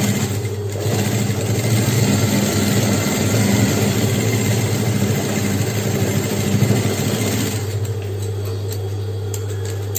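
JUKI industrial sewing machine stitching a seam through several layers of leatherette. It runs steadily, then stops about three-quarters of the way through, leaving a steady low hum.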